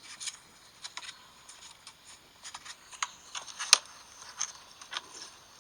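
Irregular crackling and clattering clicks from an iPhone's speaker, a glitch noise that would not stop; the loudest click comes near the middle.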